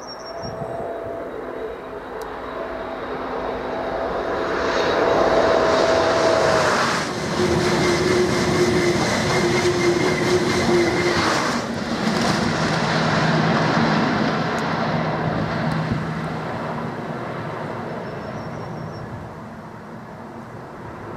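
Eurostar Class 373 high-speed train passing at speed: a rushing rumble that builds over the first few seconds, peaks, then slowly fades as the train runs away. A motor whine rides over it and drops in pitch in steps as the train goes by.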